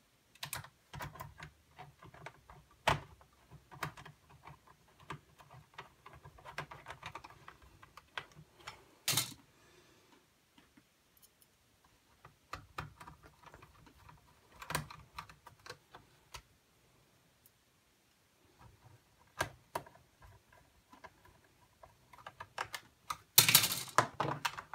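Small clicks and taps of a screwdriver and fingers working screws and plastic and metal parts in a laptop's drive bay, with a louder clatter of clicks near the end.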